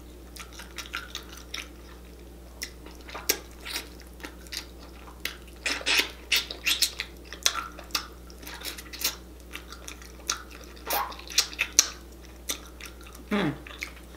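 Close-up eating sounds: wet chewing, lip smacking and sucking as saucy chicken is bitten and pulled off the bone with the fingers, in a string of irregular clicky smacks. A short falling vocal sound comes near the end.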